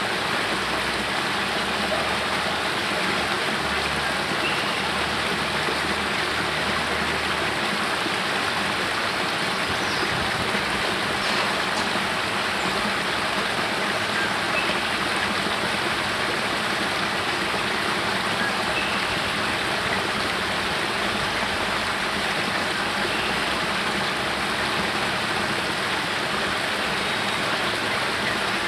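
Spring water spilling from a cave mouth down a small rocky cascade into a pool: a steady rush of falling water.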